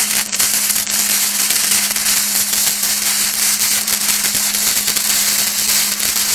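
Stick-welding arc burning steadily on a steel trailer hitch, a continuous loud crackle and sizzle with sparks flying.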